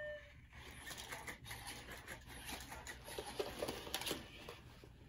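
Sony Aibo ERS-1000 robot dogs moving about: a run of light, irregular clicks and taps from their paws and joint motors. It starts just after a held electronic call from one of the robots dies away in the first half-second.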